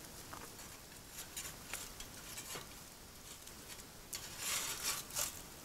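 Metal spatula clicking and scraping against a campfire grill grate as cooked pike is lifted off, over the faint sizzle of the fire. A few light clicks come first, then two louder scrapes near the end.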